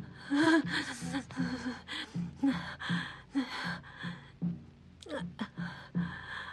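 A woman's heavy, rapid gasping breaths at about two a second, with sobbing catches in her voice, as she weeps in distress.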